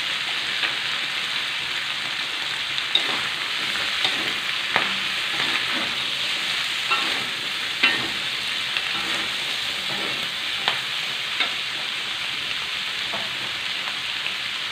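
Green beans, squid and chili sizzling in a hot wok, with a steady frying hiss. A metal spatula stirring them clicks and scrapes against the pan now and then.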